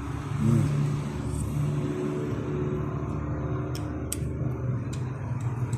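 A motor running steadily with a low hum that swells briefly about half a second in, and a few sharp clicks in the second half.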